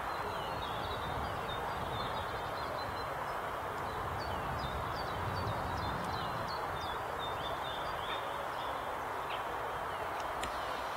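Small songbirds chirping, with many short high notes and quick slides scattered throughout, over a steady background rush.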